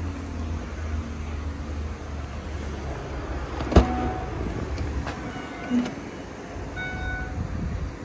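Mercedes-Benz R350's parking sensors sounding short repeated electronic beeps in the last few seconds. Before them a low hum fades out, and there is a single sharp knock a little before the middle.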